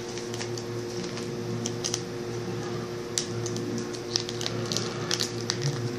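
Folded paper and sticky tape crinkling, with irregular small ticks and crackles as fingers press a strip of tape onto a paper heart. A steady low hum runs underneath.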